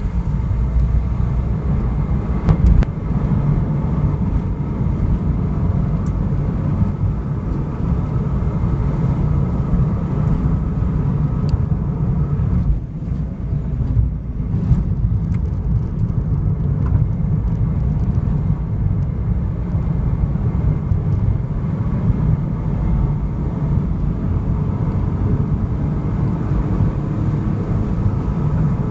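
A car driving: a steady low rumble of road and engine noise, easing briefly about halfway through.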